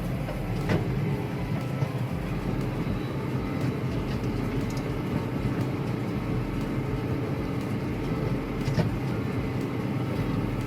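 Tractor engine running steadily while pulling a round hay baler, heard as a low, even hum from inside the cab, with a couple of faint knocks.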